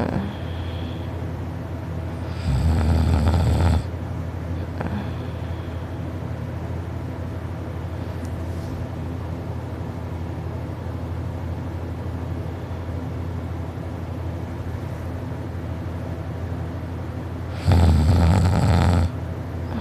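A sleeping person snoring loudly: two long snores, one about two and a half seconds in and another near the end, with a steady low hum between them.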